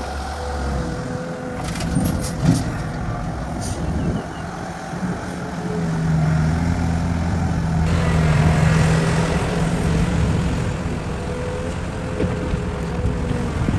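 Heavy road-construction machine's engine running steadily, with a few short clicks about two seconds in, and more hiss and rumble from about eight seconds in.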